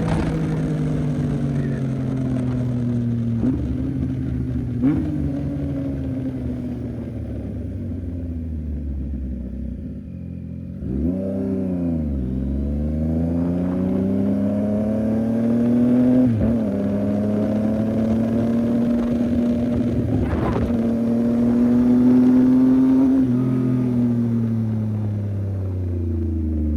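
CFMOTO 675NK's inline-three engine pulling the bike through the gears. Revs fall with a couple of small steps, then a quick rev blip about halfway in. Revs climb again with a gear change partway, then drop and fall away near the end.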